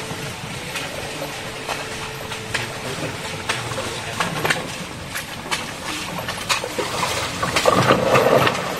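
Water running in a shallow rocky stream, with scattered clicks and knocks throughout. A louder burst of splashing comes near the end as someone wades close by.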